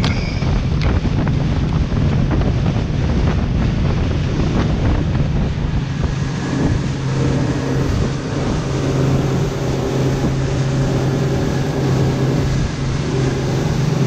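Boat under way with wind buffeting the microphone, and scattered knocks in the first half. From about six seconds in, the boat's engine comes through as a steady low hum.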